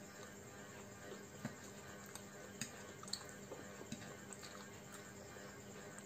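Quiet eating of chowmein noodles with a fork: scattered short wet smacks and light clicks from chewing and from the fork on the plate, over a steady low hum.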